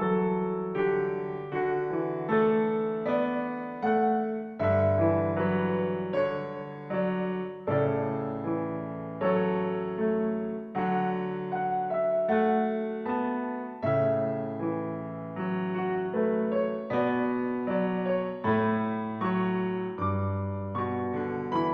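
Background piano music: a gentle, steady tune of struck notes, each fading after it is played.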